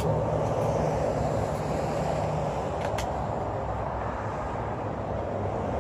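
DeWalt FlexVolt 60 V 2.5-gallon battery-powered air compressor running steadily as it fills its tank, with a low hum that drops away about halfway through and a light click about three seconds in.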